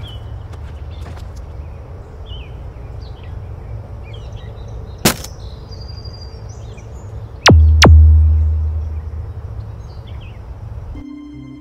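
Sound effects over an outdoor ambience of a low steady rumble and scattered bird chirps: a sharp click about five seconds in, then two loud zaps in quick succession, each falling steeply in pitch into a deep boom that fades over a second or so.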